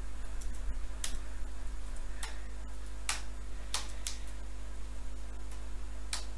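Computer keyboard keys clicking at an uneven pace, about half a dozen separate keystrokes, over a steady low hum.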